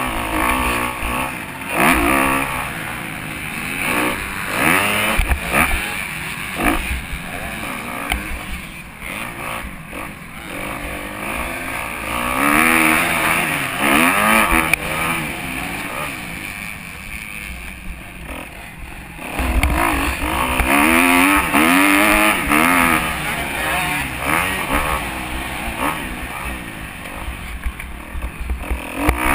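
Kawasaki 250 motocross bike's engine racing hard on the track, its pitch rising and falling over and over as the rider opens and rolls off the throttle and shifts through the gears, with wind rumble on the microphone.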